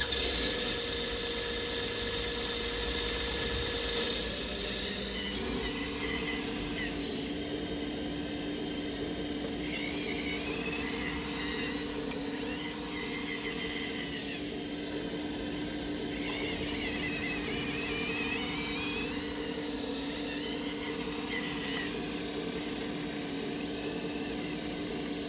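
Electric motors and hydraulic pump of a radio-controlled model excavator or truck running with a steady whine. Higher tones rise and fall as the motors change speed.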